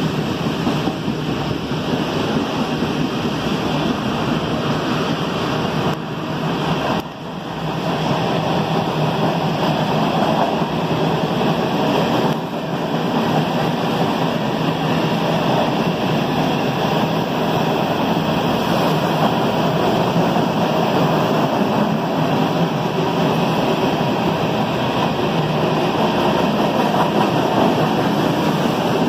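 CSX freight train's cars rolling past below, a steady rumble of steel wheels on rail, with a brief dip in level about seven seconds in.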